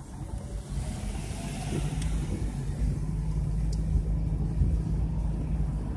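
Car engine and road noise, a steady low rumble and drone heard from inside a moving car, growing louder about a second in.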